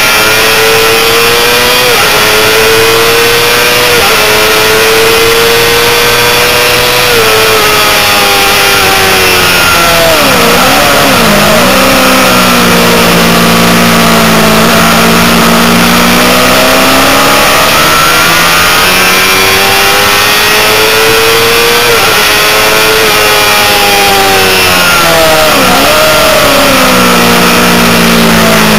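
Honda CBR600RR inline-four engine at racing revs on track, loud throughout with a rushing wind noise. It pulls up through the gears in steps, drops back with a couple of quick throttle blips on downshifts about ten seconds in, pulls up through the gears again, and blips once more on another downshift near the end.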